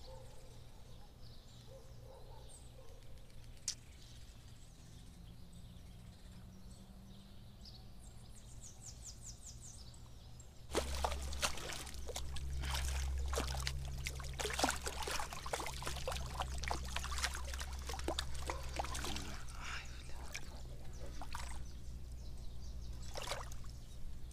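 Quiet at first. About eleven seconds in, a hooked small snook (peva) starts thrashing at the water's surface beside the bank, with irregular splashing and sloshing that carries on to the end.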